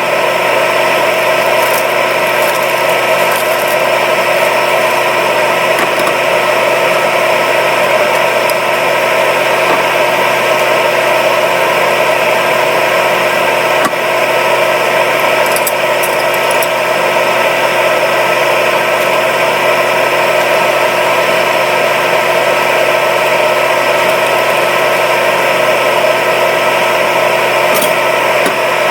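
A small electric appliance motor running steadily at one speed, a rushing noise with a steady whine over it. It is switched on just before and cuts off suddenly at the end.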